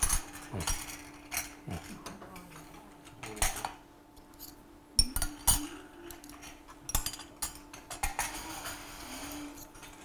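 Irregular clinks and knocks of cutlery and dishes as tasting portions are plated and passed around, over a faint steady hum.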